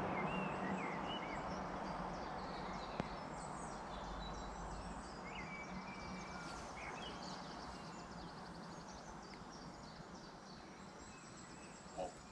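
Outdoor ambience of birds chirping and singing, with many short high calls scattered through, over a steady background rush that slowly fades. A single click about three seconds in.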